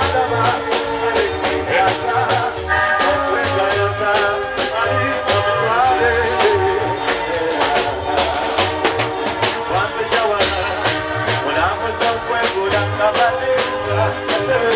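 Live band playing electric guitars, bass guitar and a drum kit with a steady beat, while a male singer sings into a microphone. A cymbal crash rings out about ten seconds in.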